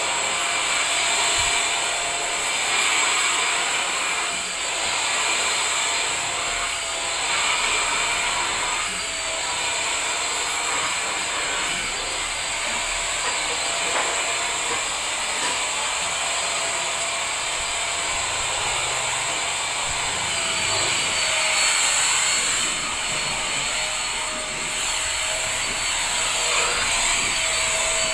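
Handheld cordless vacuum cleaner running steadily, a motor whine over an airy hiss, the pitch dipping slightly now and then as the nozzle is drawn over a fabric sofa cushion.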